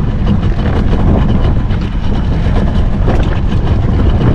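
Steady low rumble of a motorboat under way, with wind buffeting the microphone.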